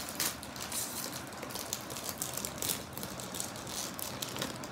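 Foil-lined plastic wrapper of a packaged chocolate cake crinkling and crackling as it is torn open by hand, in a run of irregular crackles.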